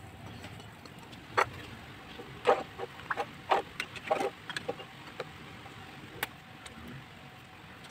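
Pieces of meat dropped by hand into a pan of simmering spiced broth: a string of short plops and splashes, about seven or eight in all, bunched in the middle and ending with one more about six seconds in, over a steady low hiss.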